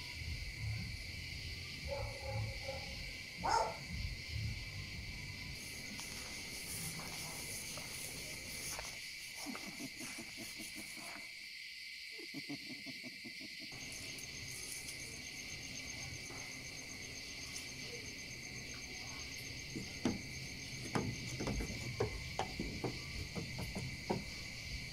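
Night insect chorus: crickets trilling steadily at a high pitch, with a few soft knocks near the end.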